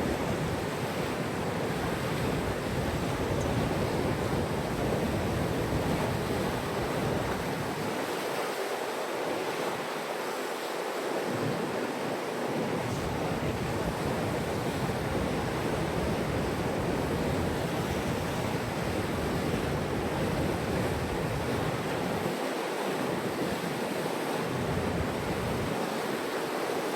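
Steady rushing noise of wind and moving water, with wind buffeting the microphone in a low rumble that briefly drops away a few times.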